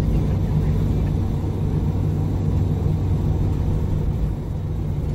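Diesel engine of a 2014 MAN Lion's City G (A23) articulated city bus idling, a steady low hum.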